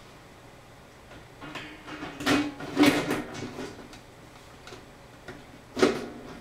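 Handling noises from server hardware: a run of sliding scrapes and clacks around the middle, then one sharp knock near the end.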